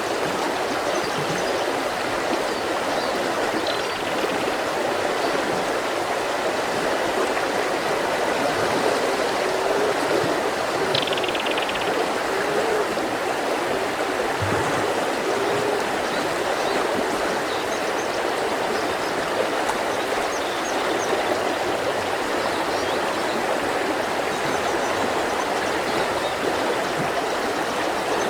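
Mountain river flowing steadily over rocks, a constant even rush of water. Faint, short bird chirps come through now and then above it.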